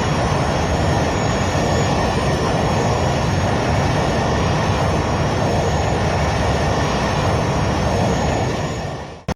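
Aircraft engine noise, a steady dense rush with a faint wavering high whine over it. It fades out about a second before the end and cuts off, with a short blip just after.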